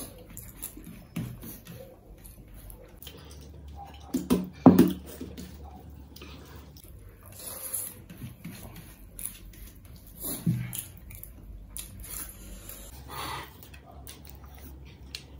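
Eating by hand: fingers squishing and mixing rice with curry on metal plates, and chewing, with a few brief louder noises, the loudest about five seconds in.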